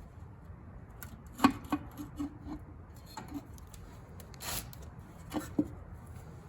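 Scattered sharp metallic clicks and clinks of hand tools working loose the bolts of a truck's differential cover, with a brief hiss about halfway through.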